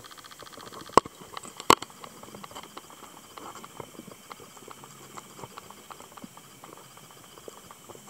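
Underwater crackling: a dense, irregular scatter of small clicks, with two sharper, louder clicks about a second and just under two seconds in.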